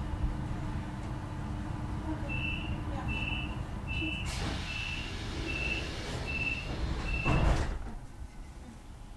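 Door-closing warning on a Hamburg S-Bahn class 474 train: seven short high beeps, a little over one a second, over the standing train's steady rumble, followed near the end by a thud as the sliding doors shut.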